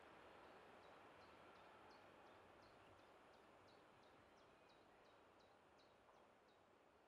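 Near silence with a faint, slowly fading hiss, over which a small bird sings: a short, high falling note repeated evenly about three times a second.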